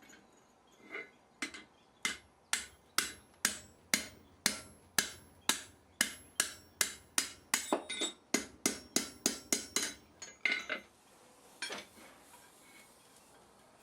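Blacksmith's hammer striking metal on an anvil in a steady run of sharp, ringing blows, about two a second. The blows come a little faster before stopping about eleven seconds in, followed by a couple of lighter taps.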